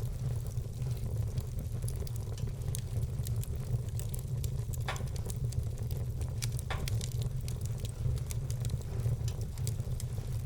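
Wood fire crackling with many small ticks and scattered pops, two sharper pops about five and nearly seven seconds in, over a steady low rumble.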